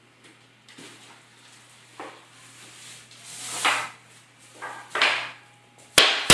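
Engineered hardwood floor planks being handled and slid into place, with several scraping swishes, then two sharp wooden knocks near the end, the second the louder.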